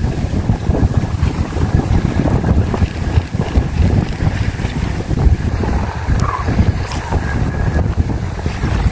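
Wind buffeting the microphone in uneven gusts, giving a loud, rough low rumble, with a faint steady high whine underneath.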